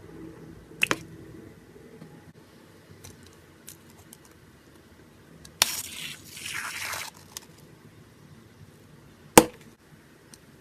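Slime being squished and handled. There are two quick clicks about a second in, a crackling, hissy squish lasting about a second and a half past the middle, and one sharp snap near the end, the loudest sound.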